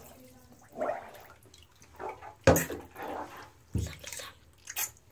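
Bath water splashing and being poured from a plastic cup in a shallow bathtub, in several short separate bursts.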